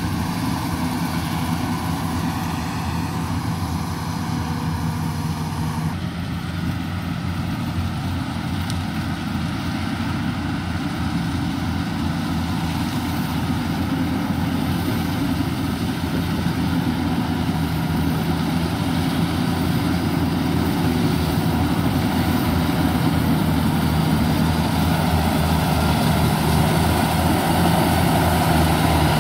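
Yanmar combine harvester's diesel engine running steadily as the machine cuts rice, growing louder toward the end as it comes closer.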